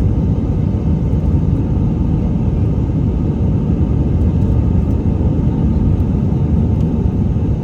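Steady low rumble inside the cabin of an Airbus A319 jet airliner, its engines running.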